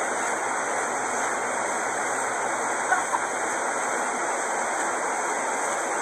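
Steady rushing of a waterfall, with a brief faint voice about three seconds in.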